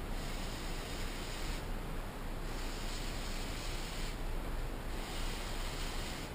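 A man slurping noodles off chopsticks: airy sucking draws, strongest about two seconds in and again about four seconds in.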